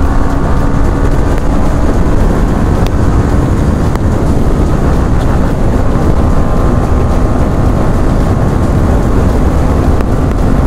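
Motorcycle engine running at speed during a race, its pitch held fairly steady, with heavy wind rushing over the microphone.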